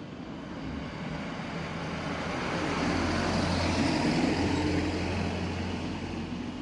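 A passing vehicle with a steady low hum that grows louder to a peak about four seconds in, then fades.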